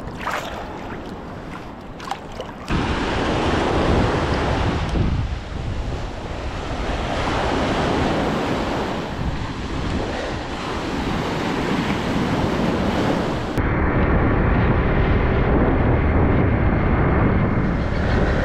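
Sea water sloshing and splashing around a camera held at the surface. After a sudden change, small surf breaks on the beach with wind buffeting the microphone. A few seconds before the end this gives way to a steadier wind rush with a low drone from a motorbike being ridden.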